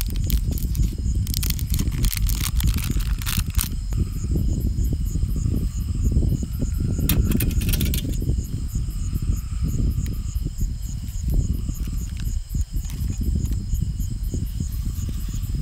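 Crickets chirping steadily, a constant pulsing high trill, over a loud low rumble. Short bursts of crackling clicks come in the first few seconds and again about seven seconds in.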